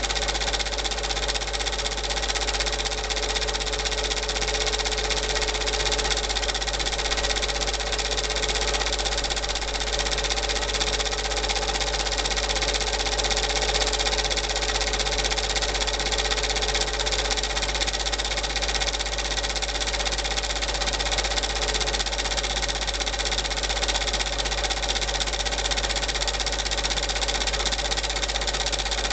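Super 8 film projector running with a steady, unchanging mechanical whirr and hum.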